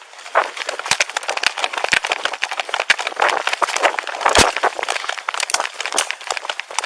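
Handling noise from an Axon Body 2 body-worn camera jostling on the moving wearer: dense, irregular rustling and clicking, with a few louder knocks, the loudest about four seconds in.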